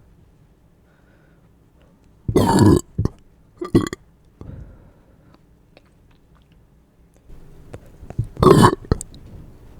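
A person burping: a long burp about two seconds in, a short one a second later, and another long burp near the end.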